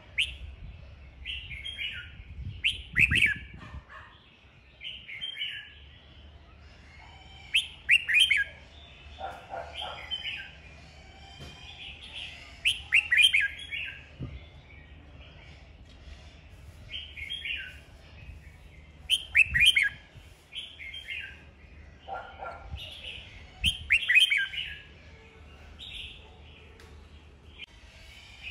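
Red-whiskered bulbul singing its competitive song: short, bright warbling phrases every second or two, with a louder phrase about every five seconds.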